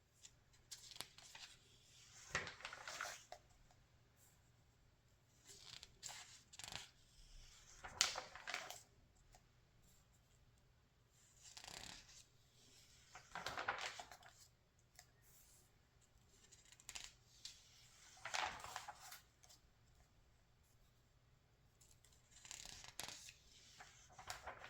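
Pages of a paper magazine being turned by hand: a soft rustle ending in a flap, five times, about every five or six seconds.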